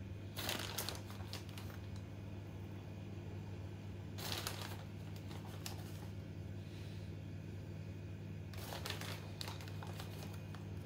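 Plastic bag crinkling in three short bursts as a hand takes out grated cheese to sprinkle, over a steady low hum.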